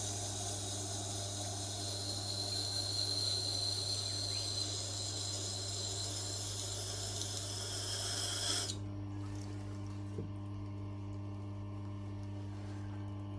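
Knife blade being ground on a running Tormek sharpener, a steady hissing scrape over the machine's low motor hum. A little over halfway through, the scraping stops abruptly as the blade comes off the wheel, and the motor keeps running.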